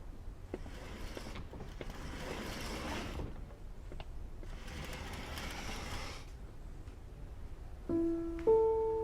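Faint soft rustling and a few light clicks over a low hum. About eight seconds in, a piano enters with a few slow, sustained notes.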